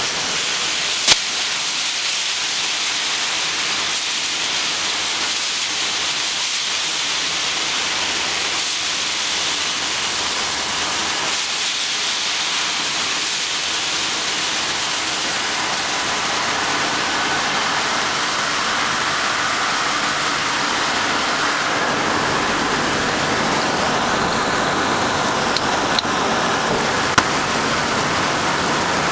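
Steady rushing, water-like hiss from running ice-making plant equipment, with two short clicks, one about a second in and one near the end.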